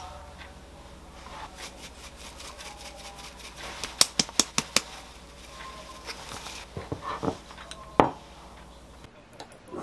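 A jar of dried parsley shaken over a dish: a quick run of about six sharp clicks about four seconds in. A few softer knocks follow, then one loud knock near the end.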